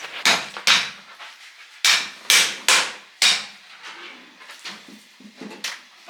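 Sharp, irregular knocks of kitchen food preparation, pounding or striking on a hard work surface: a run of loud blows in the first half, then softer ones.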